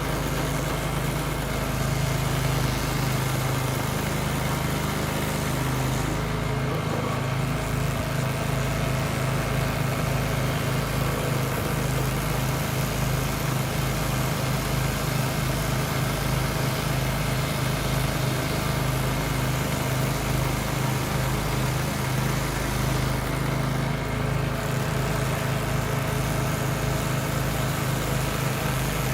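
Power King stump grinder's 14 HP Kohler Command Pro CH440 single-cylinder engine running steadily, with an even pulsing beat.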